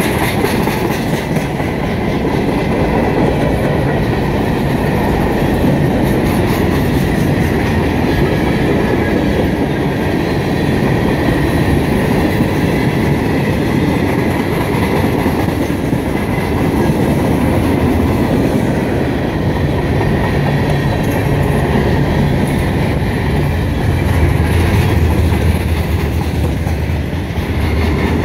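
CSX freight train's tank cars and boxcars rolling past close by, a loud, steady rumble of steel wheels on the rails.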